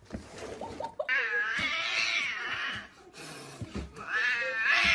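Domestic cat meowing: one long, drawn-out meow whose pitch rises and falls, then another beginning near the end.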